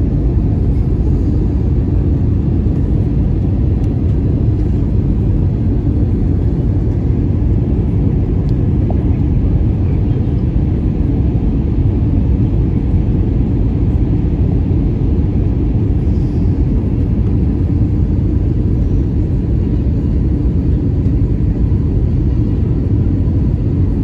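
Airbus A320's CFM56 turbofan engines and airflow, heard from inside the cabin during the landing approach, as a steady deep rumble with a faint steady whine above it.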